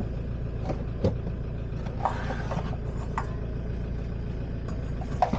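A van's engine runs steadily, heard from inside the cab as a low rumble, with a few brief faint knocks and clicks.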